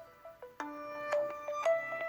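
Alcatel SmartFlip phone ringtone playing, a melody of quick, bright, mallet-like notes. The notes thin out briefly at the start, and a new run of notes begins about half a second in.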